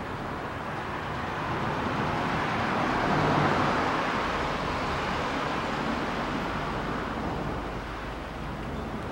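A vehicle passing by, its noise swelling to a peak about three and a half seconds in and then fading away.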